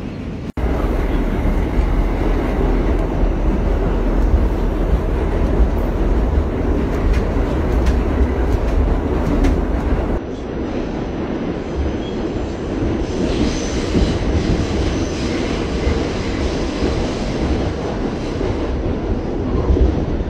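Subway train running, heard from inside the car: a steady, loud low rumble with rattling and clatter. The noise dips and changes briefly about half a second in and again about ten seconds in.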